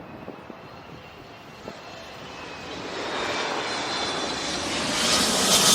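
Boeing 777 jet engines approaching, growing steadily louder over the last few seconds, with a whining tone over the rumble.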